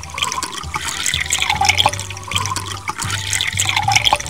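Water poured from a plastic scoop into a clay bowl, splashing and trickling steadily.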